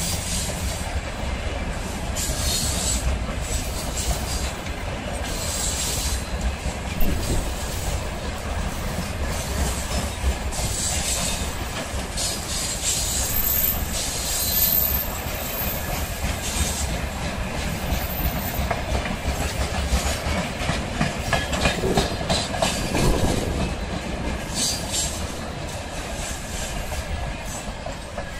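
Freight train of loaded flatcars rolling past close by: a steady rumble of steel wheels on rail with repeated clacking over the rail joints, and a thin high-pitched wheel squeal for a couple of seconds around the middle.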